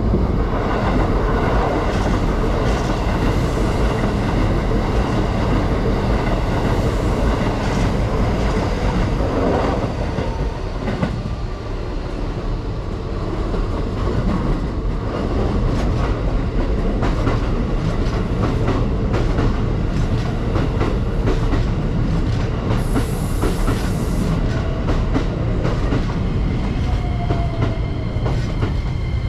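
Electric commuter trains running through a station on the Keikyu main line: a continuous rumble with wheels clicking over rail joints and a high, steady whine over it. A rising tone sounds near the end.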